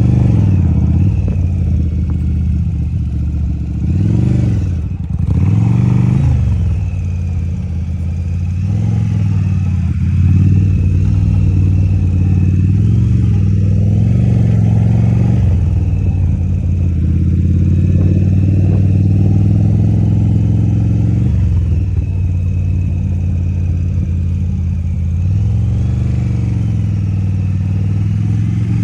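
Yamaha motorcycle engine running at low revs, its note rising and falling gently every few seconds as the rider works the clutch and throttle through slow, tight maneuvers.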